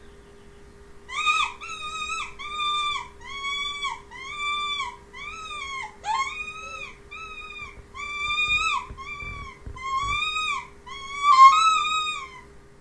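Mouse distress squeaking used as a predator lure call: a run of short, high, arching squeaks, about two a second, starting about a second in. The loudest squeak comes near the end, over a faint steady hum.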